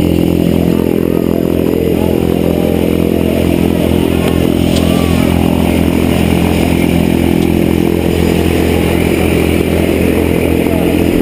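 Jump plane's engine and propeller running with a loud, steady drone.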